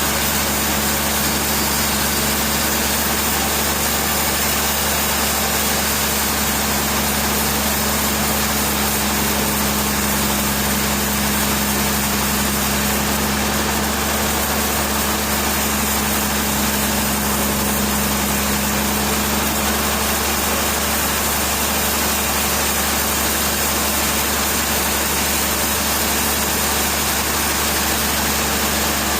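A heavy machine's engine running steadily at constant speed, with a deep, unchanging hum over a steady mechanical noise.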